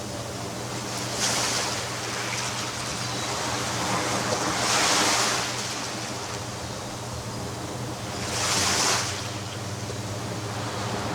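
Ocean surf on a beach: a steady wash of waves with three louder breakers, about a second in, near the middle and near the end.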